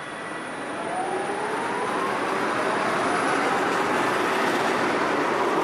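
Strasbourg Eurotram accelerating, the whine of its electric traction motors rising steadily in pitch over rolling noise, growing louder over the first two seconds.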